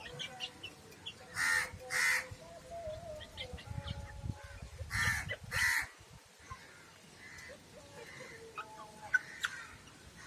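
Birds calling: two pairs of harsh, rasping calls, each pair about half a second apart and the pairs about three and a half seconds apart, with fainter thin chirps and peeps between them.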